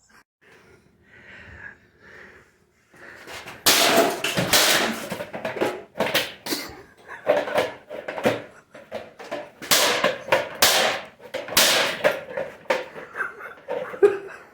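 Irregular run of sharp knocks and clatter, beginning about three seconds in: a vacuum cleaner being banged on and handled while it is taken apart.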